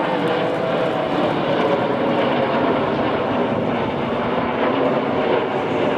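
Nine BAE Hawk T1 jets flying overhead in close formation: a steady jet-engine noise from their turbofans.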